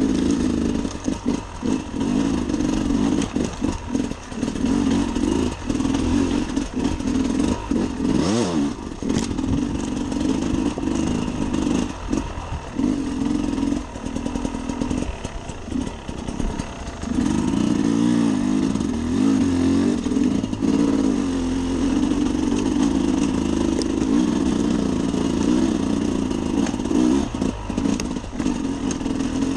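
Sherco SE 300 Factory two-stroke enduro engine being ridden over rough rocky ground, its note rising and falling as the throttle is opened and shut again and again. Short knocks and clatter run through it.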